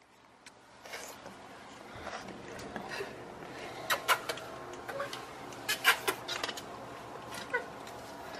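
A 12-week-old French bulldog puppy whimpering a few times in short, bending cries, among several sharp clicks and knocks.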